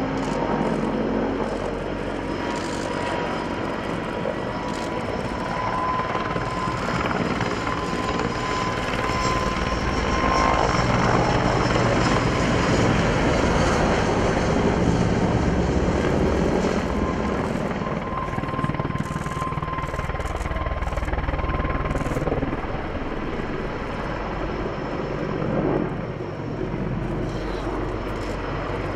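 Mil Mi-26 heavy-lift helicopter flying, its twin turboshaft engines and rotor making a continuous loud rumble with a steady whine on top, growing louder about a third of the way in and easing off again.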